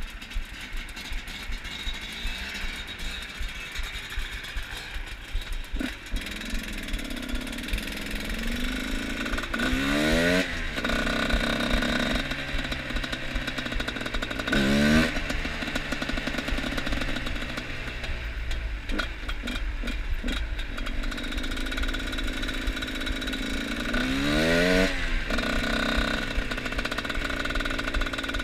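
Two-stroke enduro motorcycle engine running, revved up sharply three times with quick rising pitch between spells of steadier running.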